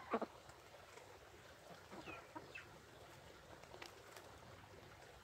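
Backyard poultry calling: a short, sharp double call right at the start, then a few faint, soft calls.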